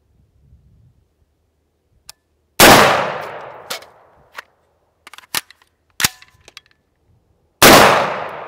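AR-15 rifle fired twice, about five seconds apart, each shot loud with a long echoing decay. Between the shots come several short metallic clicks and clacks of a reload.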